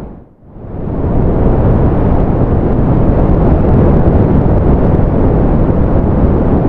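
Steady, deep rushing noise of ocean surf used as white noise, heaviest in the low end. Just after the start it dips almost to nothing and swells back within about a second, like a fade where the recording loops.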